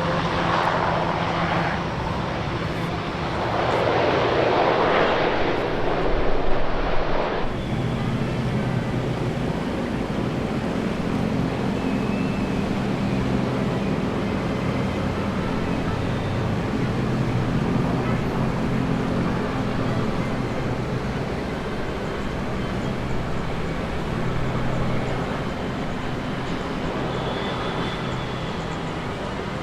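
Jet airliner engines: a rushing noise that swells twice over the first seven seconds, then after an abrupt change a steady low engine hum.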